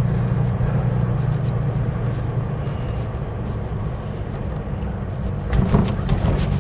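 1954 Rover P4 90's inline-six engine running steadily under load, heard from inside the cabin over road noise, its hum easing a little after the first second. A short cluster of clunks comes near the end.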